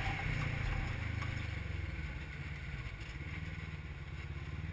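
Polaris RZR XP 1000 side-by-side's engine running steadily while driving through sand, heard from inside the open cab. It eases off slightly toward the end.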